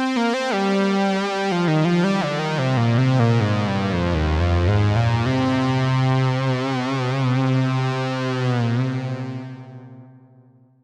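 Moog Matriarch Dark analog synthesizer playing a rich sustained patch: low notes glide from pitch to pitch, then a note is held with a slow wobble in its upper tones and fades out to silence near the end.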